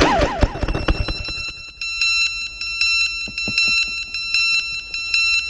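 An FPV racing quadcopter hits the grass. Its motors whine down and there are a few sharp knocks in the first second. From about a second in, the quad's onboard piezo buzzer sounds a high-pitched beeping alarm in a fast, steady repeating pattern after the crash.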